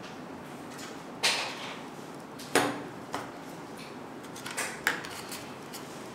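Spoon knocking and scraping against a plastic mixing bowl while cake batter is scooped into paper cupcake liners: several sharp knocks, the loudest two in the first half.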